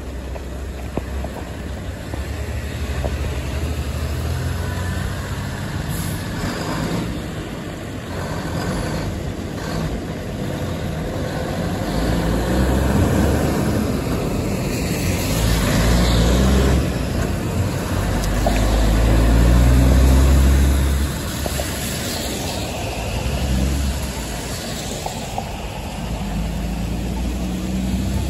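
Heavy diesel dump truck idling, then pulling away and accelerating, its engine note climbing in steps as it works up through the gears and loudest about twenty seconds in. Passing cars hiss over the wet road.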